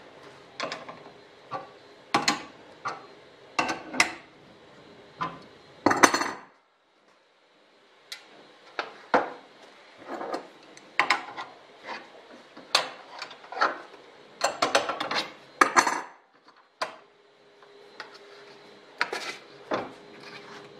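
Irregular metallic clanks, knocks and rattles from working a bench-mounted sheet-metal bending brake and loosening its clamp-bar bolts with an adjustable wrench while the thin sheet-metal part is handled.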